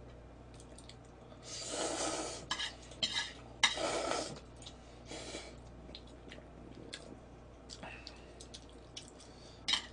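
Ramen noodles slurped from a bowl: two long slurps about one and a half and three and a half seconds in, and a fainter one after, with light clicks of utensils against the bowl.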